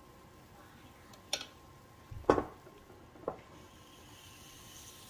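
Oster waffle maker lid shut over freshly poured batter with one deep thump, a light click before it and a smaller knock after. A faint steady hiss then begins as the batter starts sizzling and steaming between the hot plates.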